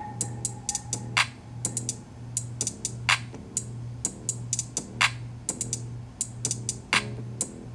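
Background music: an instrumental beat with a low pulse about twice a second, quick high ticks between, and a sharper hit roughly every two seconds.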